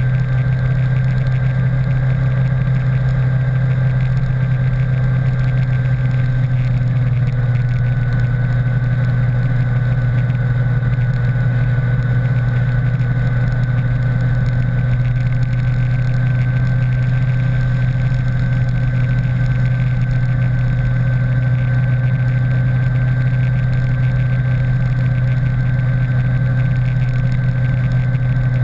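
Motorcycle at a steady cruise: a constant low drone of engine and wind, with a faint high whine that dips slightly in pitch about six seconds in.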